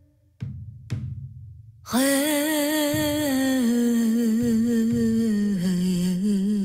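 Meditation music: two low drum beats, then from about two seconds in a long hummed vocal note with vibrato that steps down in pitch.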